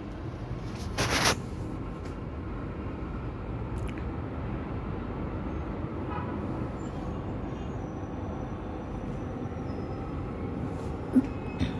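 Steady low rumble of sandstorm wind and city traffic outside the window. A brief loud burst of noise comes about a second in, and a sharp knock near the end.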